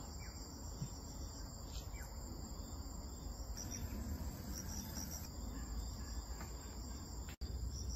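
A steady, high-pitched chorus of insects chirring in the surrounding vegetation.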